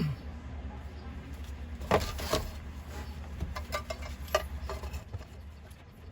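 Light clicks and taps of a fuel pump's wiring connector being handled and cleaned, a few sharper ones about two seconds in, over a steady low hum.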